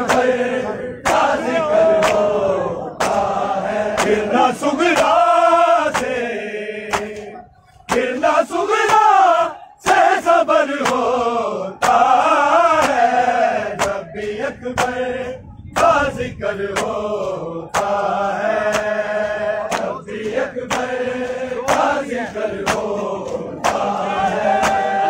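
A group of men chanting a noha, a Shia lament, in unison. Under it runs a steady beat of sharp slaps: hands striking bare chests in matam.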